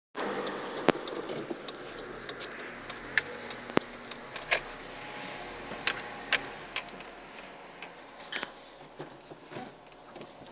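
A 2012/13 Ford Fiesta 1.0 making irregular sharp creaks and clicks over a low steady background, the fault noise the owner hears at times when reversing and likens to an ox cart. Its cause is still undiagnosed.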